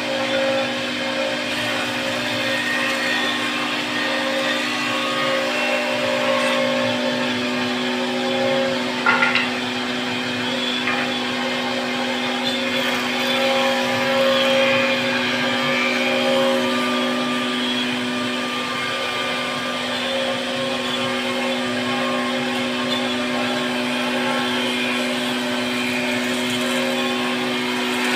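CNC wood router's spindle motor running with a steady whine, with a brief sharp click about nine seconds in.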